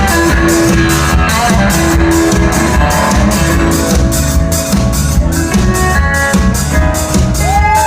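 Live country-rock band playing an instrumental passage: electric guitar lines over bass and drum kit with a steady cymbal beat, and a bent guitar note near the end.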